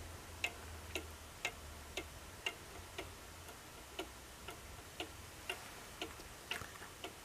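Cuckoo clock with a Swiss-made movement ticking, about two ticks a second, running on its cleaned weights though the movement is not yet cleaned or oiled. Near the end the beat turns uneven with a few extra clicks.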